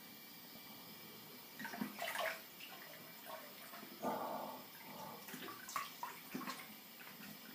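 Faint water splashing at a bathroom sink in a few short, irregular bursts, as of hands rinsing between passes of a wet shave.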